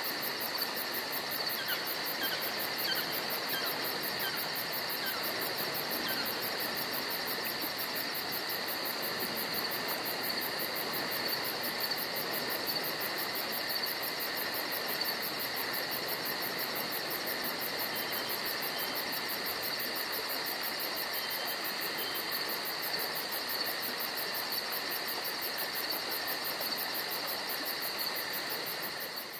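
A steady, high-pitched trilling chorus from the woodland, unbroken throughout, with a few faint falling chirps in the first few seconds; it cuts off suddenly at the end.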